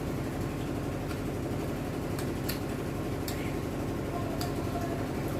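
Steady low mechanical hum in the background, with a few faint clicks and mouth sounds of someone eating fish and rice by hand, chewing the bones.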